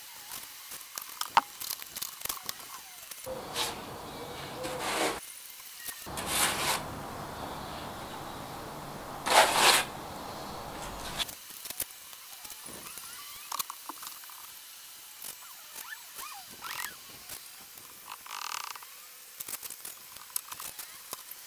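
Hands-on work noise from fitting a window: scattered clicks and knocks, with three short bursts of rustling from a stiff packaging sheet between about four and ten seconds, over a low rumble.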